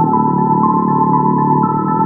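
Background music: a keyboard melody of short held notes stepping over sustained low chords.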